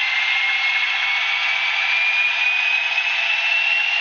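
ESU BR232 model diesel locomotive running under its DCC sound decoder, playing the diesel engine sound through its small speaker. It gives a steady rush with no bass, topped by a thin whine that climbs slowly in pitch as the locomotive picks up speed.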